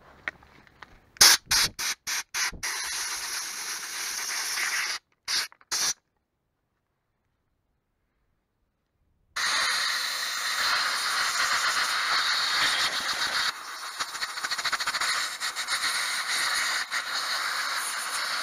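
Compressed-air blow gun blasting into the air-filter and carburettor housing of a Stihl FS 56 brush cutter, blowing out the dirt that had clogged it. It starts with a handful of short blasts, then long steady hissing blasts, broken by a few seconds of dead silence.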